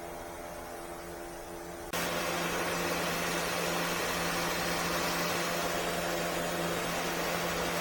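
Hyundai Santa Fe engine running at a steady idle after a starter replacement. About two seconds in, a loud, even hiss comes in suddenly over the hum and stays.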